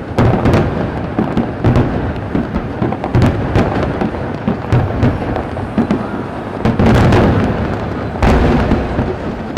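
Aerial fireworks going off in quick succession: a steady run of sharp bangs and cracks over deep rumbling booms, with a few heavier blasts about three, seven and eight seconds in.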